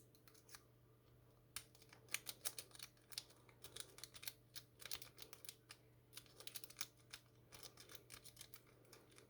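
A lock pick rake worked in the keyway of a padlock: a fast, irregular run of faint metallic clicks and scrapes as the pins are bounced, picking up about a second and a half in.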